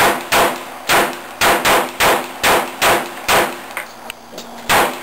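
Handgun firing about ten rapid shots, a few a second at an uneven pace, each shot ringing briefly, with one last shot after a short pause near the end.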